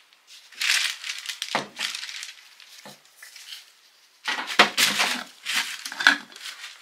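A glass jar being handled and its plastic screw lid twisted off, giving gritty scraping and rustling with light glass clinks, in two spells.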